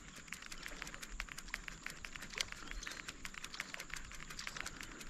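Fishing reel being cranked to retrieve a lure: a faint, fast run of light clicks, about eight a second.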